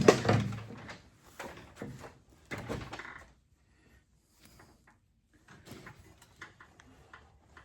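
Hand tools and metal parts clinking and knocking during work on a tractor engine: a heavier clunk in the first second, then scattered light taps and clicks.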